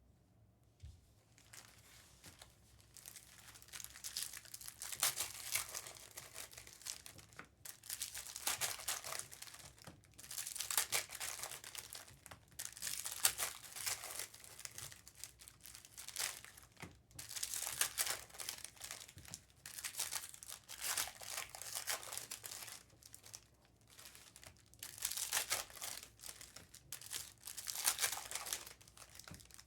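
Plastic and foil wrapping on trading-card boxes and packs crinkling and tearing as they are opened. It starts about three seconds in and goes on in repeated bursts of crackling.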